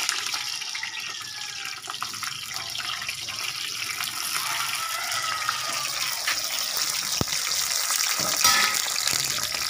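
Eggplant slices frying in hot oil in an aluminium wok: a steady sizzle with oil spattering. One sharp click about seven seconds in.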